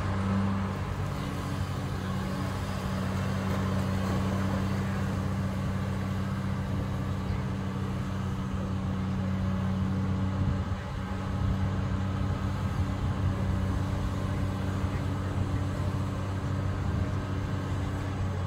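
Heavy diesel engine of a pontoon-mounted dredging excavator running steadily with a low drone while it dredges. Its note shifts about halfway through, with a brief dip in level.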